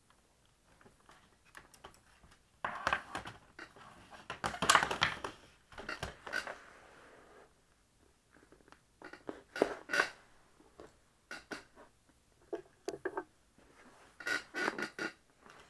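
Handling noise as the laptop's detached display panel and stripped base are moved about on a wooden desk. A few seconds of scraping and rustling, loudest around five seconds in, are followed by scattered clicks and knocks.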